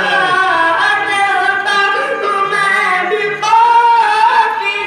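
A naat being sung, apparently unaccompanied: one voice holding long, wavering melodic lines.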